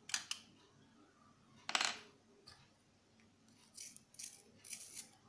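A few light clicks and a clatter of small hard objects, then a pencil turned in a small handheld plastic sharpener: several short scraping strokes near the end.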